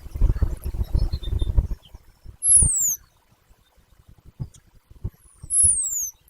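Two high, sweeping calls from a pine siskin close to the microphone, each about half a second long, the first about two and a half seconds in and the second near the end. Before them there is a flurry of low knocks and rustling.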